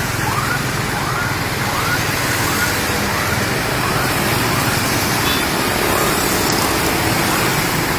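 Steady street noise of motorbike traffic, with faint background voices in the first few seconds.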